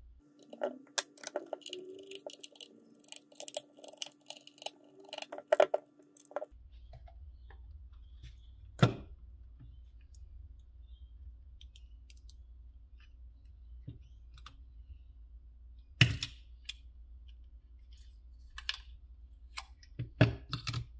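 Handling sounds of a small plastic device being taken apart: many small clicks, taps and scrapes as the screws come out and the plastic case of an Extech DT100M laser distance meter is worked open, then a few separate sharp clicks of plastic parts.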